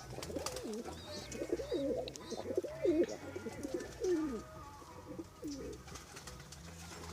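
Domestic pigeons cooing: a run of low, rolling coos one after another, which fade out near the end.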